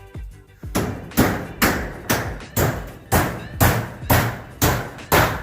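Hammer driving nails through corrugated zinc roofing sheet: about ten even blows, roughly two a second, each with a short metallic ring.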